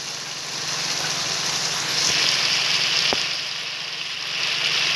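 Fish in an oily onion-tomato masala sizzling steadily in a wok as it is fried (bhuna) on the stove, the hiss swelling a little around the middle.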